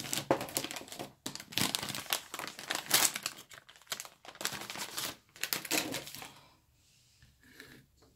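A paper tissue crumpled and rustled in the hands: dense crackling that stops about six seconds in, followed by a faint handling noise near the end.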